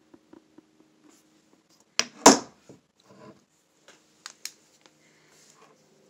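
Handling noise: scattered light clicks and taps, with a sharp double knock about two seconds in that is the loudest sound.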